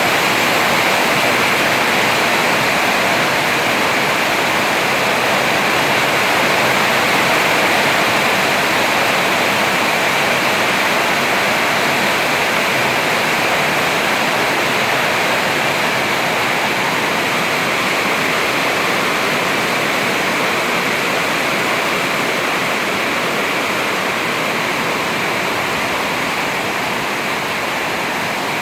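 Rain pouring down steadily in a storm, a dense, even rush of water noise.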